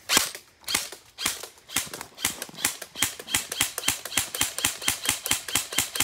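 Airsoft gun firing on full auto: a few separate sharp pops in the first second and a half, then a steady, evenly spaced stream of pops, several a second.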